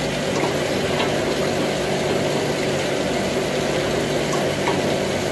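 Ice maker running steadily: a low refrigeration-compressor hum under an even rushing noise, with a few faint metallic clicks as a wrench tightens the cap on the thermostatic expansion valve.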